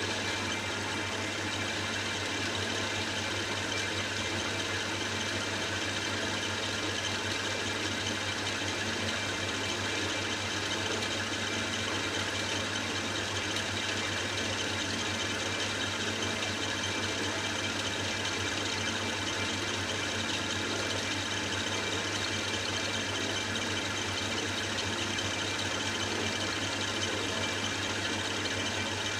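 Boxford metal lathe running on its middle belt pulley while a carbide-insert tool turns a metal bar: a steady low hum with steady higher whining tones over it.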